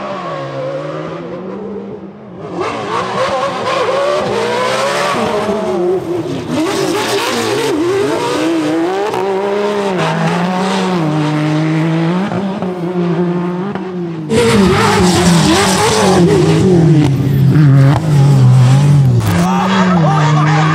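A Pro 4 short course truck and a Can-Am Maverick R side-by-side racing flat out on dirt. Their engines run at high revs, and the pitch climbs and drops again and again as they shift gears. The sound jumps abruptly about two seconds in and again a little past two-thirds of the way through.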